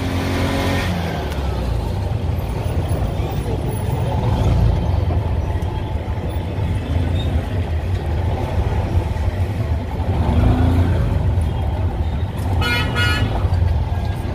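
Auto-rickshaw engine running steadily during a ride through street traffic, with a short vehicle horn toot near the end.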